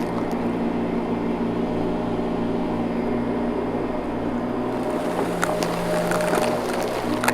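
Vacuum cleaner running with a steady motor hum, with a few short clicks about five to six seconds in.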